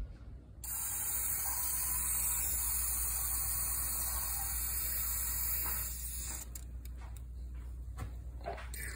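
Aerosol can of foaming carburetor cleaner spraying through its red extension straw into the carburetor throat: a steady hiss that starts about half a second in and cuts off after about five seconds. A few faint clicks follow, over a low steady hum.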